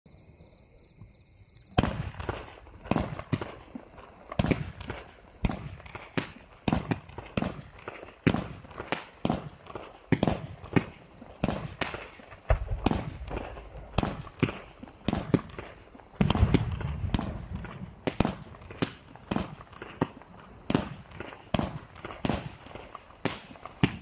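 A 20-shot, 500-gram consumer fireworks cake firing one shot at a time. Its sharp bangs start about two seconds in and follow every half second to a second, with no finale, and a denser, louder cluster of shots about two-thirds of the way through.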